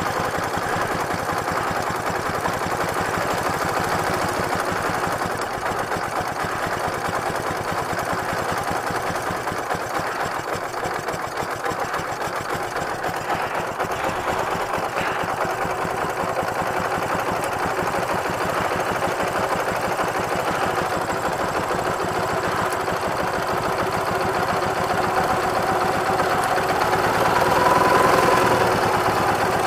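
Ural motorcycle's flat-twin engine idling steadily while the ignition timing is adjusted at the distributor; the idle rises slightly near the end.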